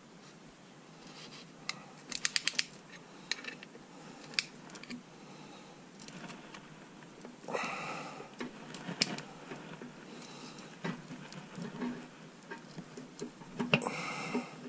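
A cheap band-type piston ring compressor being reset around a piston: quick runs of ratchet clicks as the band is tightened, with scattered metal clicks and a brief rustle about halfway through.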